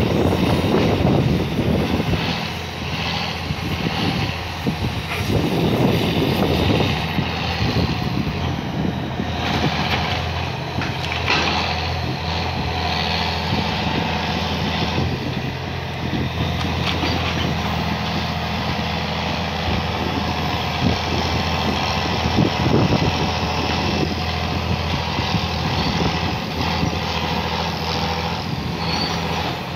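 Diesel engine of a scrap-handling grapple crane running steadily, with a few sharp knocks scattered through.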